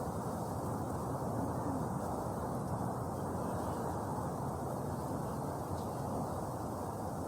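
A mass of honeybees buzzing in a steady, unbroken hum.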